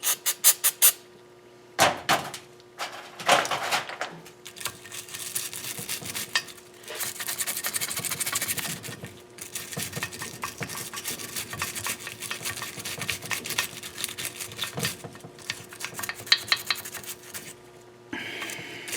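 Hand-cleaning of a KA24DE engine's deck surface: a few sharp metal clinks, then a long run of fast rasping scrubbing strokes on the metal.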